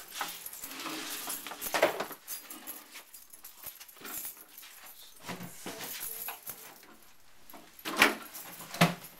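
Bare metal ride-car frame knocking and rattling as it is handled and shifted on its small wheels, with scattered clanks and a few sharper knocks about two seconds in and twice near the end.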